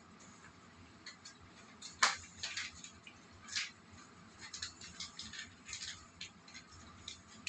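Scattered small clicks and scrapes of a UTP network cable being stripped and handled with a cutting tool, with a sharper click about two seconds in and another about a second and a half later.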